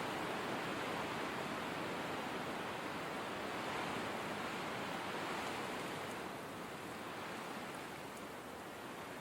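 Blizzard wind ambience: a dense, steady hiss of wind that eases a little about two-thirds of the way through.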